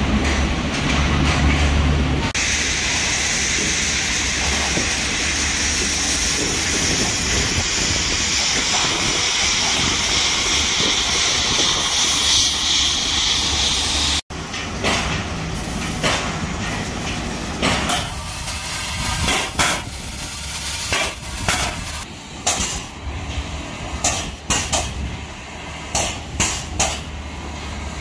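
Dry-dock shipyard work noise. For the first half there is a steady high hiss. After a cut it gives way to scattered, irregular knocks and clanks of work around the hull.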